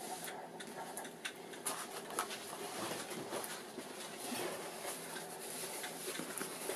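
Quiet, irregular rustling and light taps of a large plastic-film-covered diamond-painting canvas being unrolled and handled on a table.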